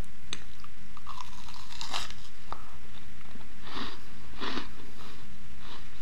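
Biting into and chewing a fried chicken empanada, the crisp fried pastry crust crunching in a series of short bursts, loudest about two seconds in and again around four and a half seconds in.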